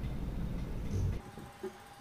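GETIDY 23L flash autoclave running in its preheating stage: a low rumble that cuts off abruptly about a second in, leaving a faint steady hum with soft pulses about twice a second.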